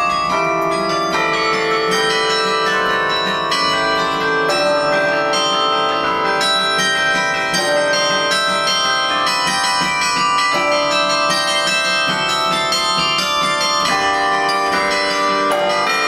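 Carillon bells played from the baton keyboard: a quick run of struck notes, many ringing on over one another.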